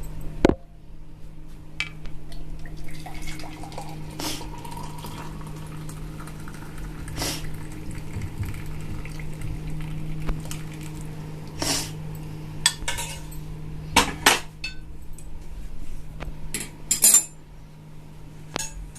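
Metal pots and utensils clinking and knocking now and then, with some liquid sounds, as the boiled kadha is poured out, over a steady low hum.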